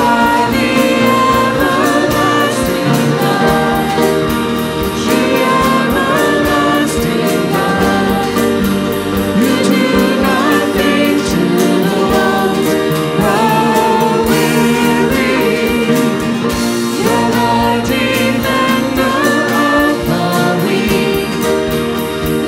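Live worship band music with singing over a steady beat.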